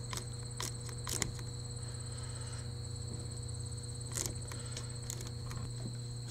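Irwin Quick-Grip bar clamp, set up as a spreader, clicking now and then as its trigger is squeezed to stretch sling-chair fabric tighter; the sharpest click comes about a second in. Crickets chirp steadily behind it, over a low hum.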